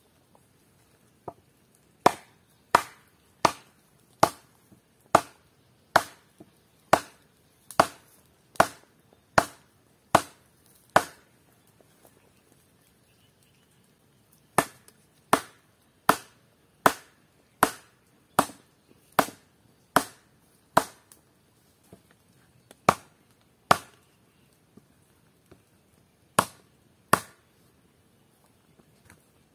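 Wooden stakes being pounded into the ground with a wooden club: sharp wood-on-wood knocks, about one and a half a second, in several runs separated by short pauses.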